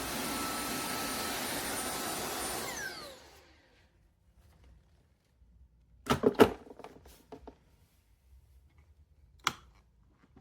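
Tineco Floor One S9 Artist wet-dry vacuum running steadily, then switched off about three seconds in, its motor whine falling as it winds down. A few sharp knocks come about six seconds in, with lighter clicks after and one more click near the end.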